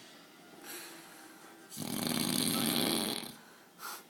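A man snoring in his sleep: one long, loud snore starting a little under two seconds in and lasting about a second and a half, between quieter breaths.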